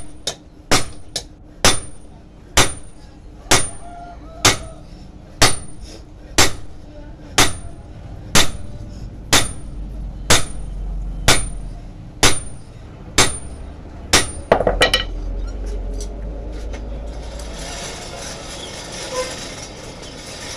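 Hand hammer striking a red-hot steel cleaver blank on a small stake anvil, about one ringing blow a second for some fifteen blows, with a quick cluster of knocks just before the hammering stops. A steady rushing noise then takes over as the blank goes back into the coal forge to reheat.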